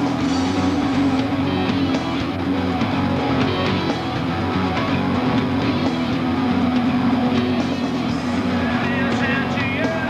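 Rock music with guitar playing steadily throughout.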